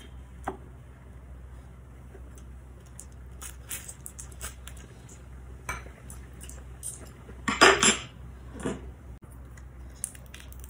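Chopsticks and a glass dipping bowl clinking, with scattered clatter of dishes being handled; the loudest clatter comes about three-quarters through.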